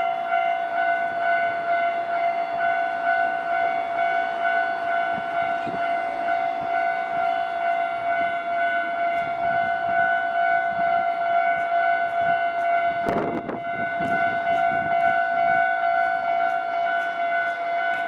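Japanese railway level-crossing warning bell ringing steadily with its electronic tone, over background noise, with a brief louder rush of noise about two-thirds of the way in.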